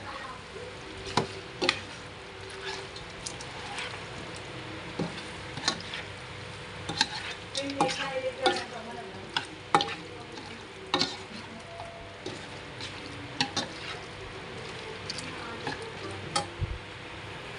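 Spoon stirring chicken and squid in a frying pan, scraping and clicking against the pan at irregular intervals over a steady sizzle of frying.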